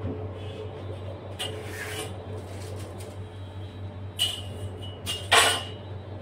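Brief handling noises, short rustles and knocks, as the roses on top of a cake are rearranged by hand: three bursts, the loudest about five seconds in, over a steady low hum.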